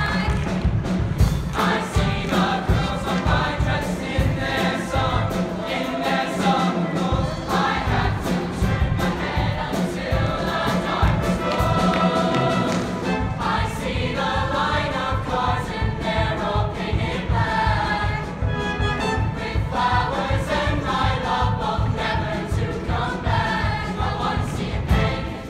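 Mixed show choir singing in harmony over accompaniment with a steady beat.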